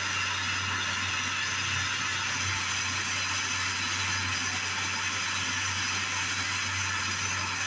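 Jeweller's torch flame hissing steadily while melting small cut pieces of silver into round design balls on a brazing board.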